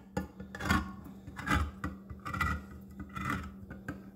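Handheld manual can opener being cranked around the rim of a food can, its cutting wheel making a rasping grind in about four pulses, one with each turn of the knob.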